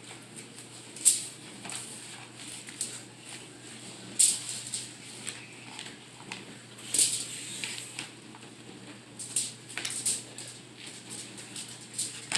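Aluminium foil crinkling and rustling in irregular bursts as a foil-packet meal is folded and wrapped by hand.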